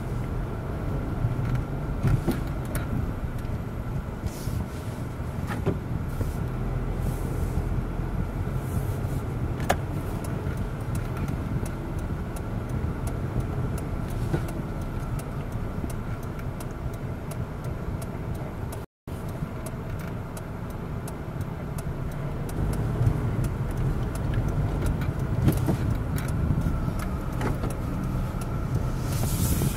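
Car cabin noise while driving slowly in town traffic: a steady low engine and road rumble heard from inside the car, with a few faint clicks. The sound briefly cuts out about two-thirds of the way through.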